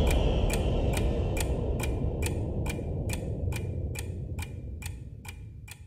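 Clock ticking, about three ticks a second, over the fading low tail of the song's music. The ticks and music fade out together and stop near the end.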